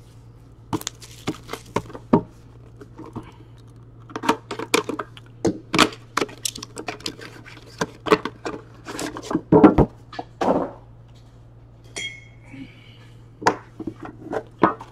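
Handling noise from a sealed trading-card box being unwrapped and opened: plastic shrink wrap crinkling, cardboard and the metal tin inside clicking and knocking in many short sharp strokes, and a brief high scrape about twelve seconds in.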